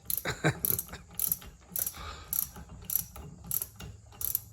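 Hand socket ratchet clicking in repeated short strokes, about one every half second, tightening a bolt while the new starter is mounted on the outboard motor.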